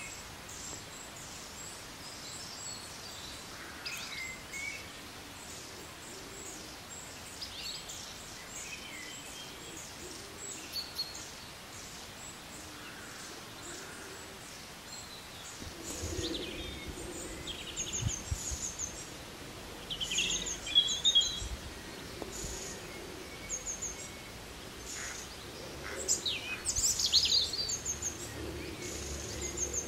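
Outdoor birdsong: many short chirps and calls from several birds, busier and louder in the second half, with quick high repeated notes near the end. A low rumble joins about halfway through.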